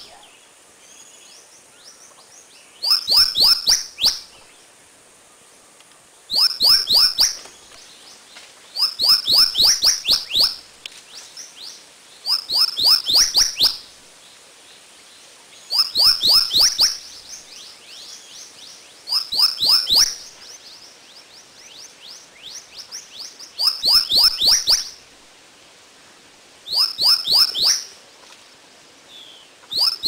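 A songbird singing the same short phrase over and over: a quick run of five or six falling whistled notes lasting about a second, repeated about every three to four seconds, eight times in all, over a faint steady outdoor background.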